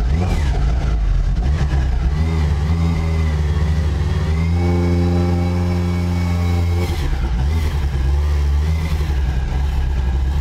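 Lancia Delta S4 Group B rally car's twin-charged 1.8-litre four-cylinder engine running and being revved: several blips of the throttle, revs held up for a couple of seconds in the middle, then dropping back to a lumpy idle with more short blips.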